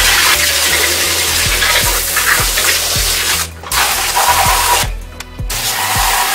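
Background music with a steady beat over the hiss of a liquid spray washing down a circuit board, the hiss breaking off briefly twice.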